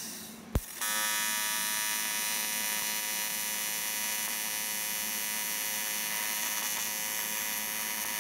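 Everlast PowerTIG 200DV TIG welder's AC arc on aluminum: a sharp click about half a second in as the arc strikes, then a steady, loud buzz of many even tones as the weld runs, with 6061 filler rod fed by hand.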